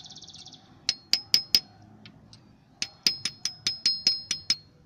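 Light taps of a metal tool, each with a short bright metallic ring, driving the new crankshaft oil seal fully home in its bore. A group of four taps comes about a second in, then a faster run of about nine, some five a second.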